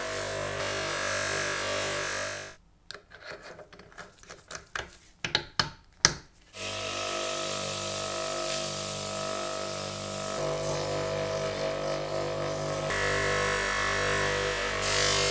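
Electric motors running steadily: a bench buffing wheel polishing small steel parts and a drill spinning a rod against sandpaper. A few seconds in the running sound drops out for about four seconds, leaving only scattered small clicks and knocks. Near the end a brighter hiss joins the motor.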